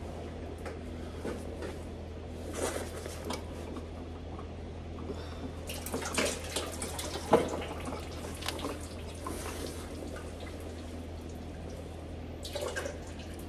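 Engine oil dripping and trickling out of a just-loosened oil filter. It spills because the filter's position gives the oil nowhere to drain. Scattered clicks of tools on metal come through it.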